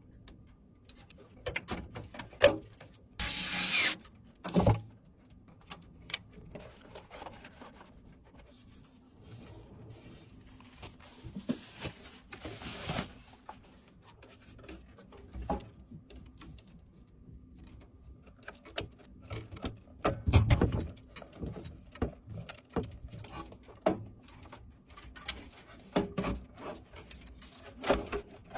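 Computer parts being handled during a PC build: scattered clicks, taps and rubbing, two short scraping rustles, and a dull thump about twenty seconds in.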